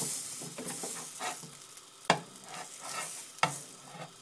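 Pancake batter sizzling in butter in a frying pan, with a spatula scraping at the pan and knocking against it three times, the last two knocks the loudest.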